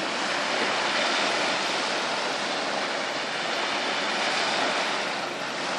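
Small lake waves breaking and washing onto a pebbly shore: a steady rushing hiss.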